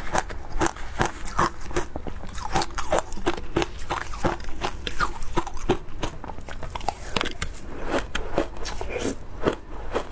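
Shaved ice with matcha and milk powder being bitten and chewed close to lapel microphones: a quick, crackly run of many small crunches a second.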